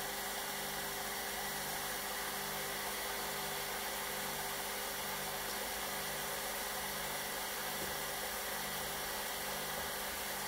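Electric motor of a small wet stone-cutting saw running steadily with its circular blade spinning, a constant hum with a slow throb about once a second.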